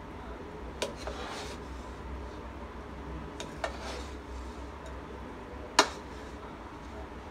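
A wooden spatula stirring rice in a nonstick pot: the rice rustles as it is turned, and the spatula knocks sharply against the pot about four times. The loudest knock comes near the end.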